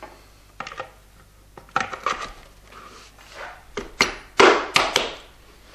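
Hard rebreather parts knocking, clicking and scraping as the scrubber canister is slid into its housing: a run of separate knocks, with the loudest scrape and knocks about four seconds in.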